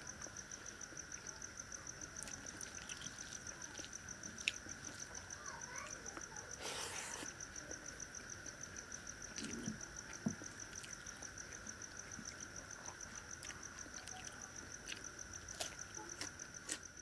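Crickets chirping in a steady, fast-pulsing trill, with a few faint clicks from eating by hand.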